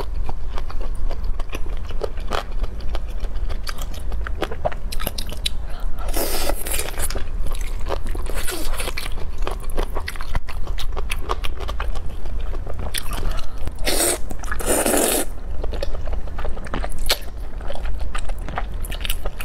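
Close-miked eating: steady chewing with many short crunchy bites, and a few longer wet mouth sounds about a third of the way in and again after the middle.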